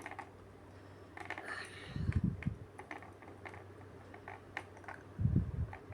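Small plastic toy pieces being handled, making scattered light clicks and taps. Two dull low thuds come about two seconds in and again near the end.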